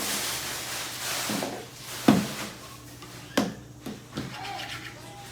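Slime being sliced with a toy slicer: a few sharp, separate taps and knocks against a hard surface, after a rustling hiss in the first second or so.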